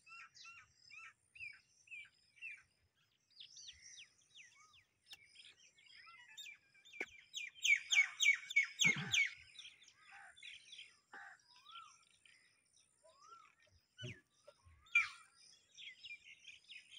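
Several small birds chirping and singing, with a loud run of fast repeated chirps about halfway through and a few falling whistled notes. Two brief low sounds come in under the birdsong.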